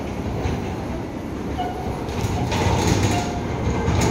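Earthquake simulator shaking through a magnitude 4.5 quake: a low rumble with rattling knocks, growing louder about two seconds in.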